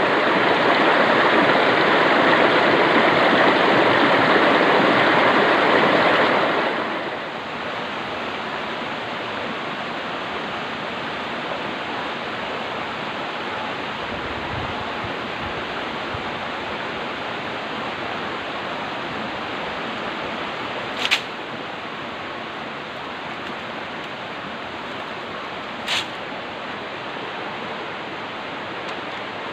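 Stream water rushing steadily. It is louder for the first seven seconds or so, then settles to a lower, even flow. Two brief sharp sounds cut through it, about five seconds apart, in the second half.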